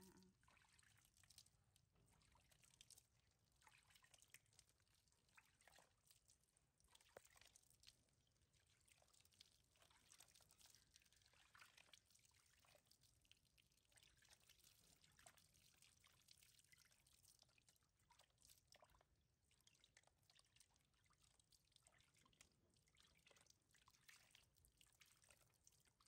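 Faint water trickling and dripping into a plastic basin, with irregular small splashes, as a baby monkey is rinsed by hand.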